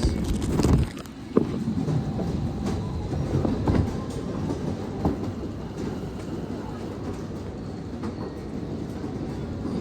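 Airport baggage X-ray scanner's conveyor belt running: a steady low rumble with scattered faint knocks and rattles. There is louder handling noise in the first second.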